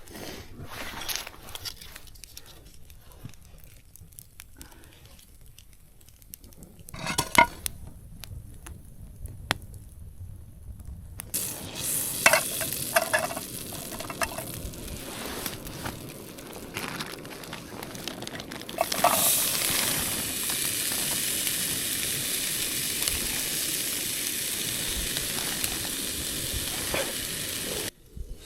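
Bacon frying in a pan. First come a few faint clicks and a sharp knock. The sizzle starts about a third of the way in and grows into a steady, louder hiss from a little past the middle.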